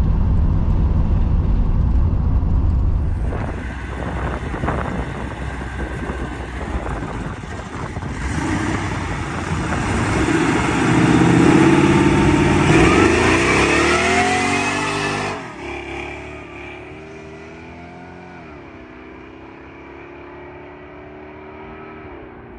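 Supercharged Oldsmobile Cutlass engine launched at full throttle with the rear tyres spinning. It revs up in repeated rising sweeps, then runs quieter as the car pulls away, the pitch climbing and dropping at a couple of gear changes. It opens with a low rumble heard inside the cabin.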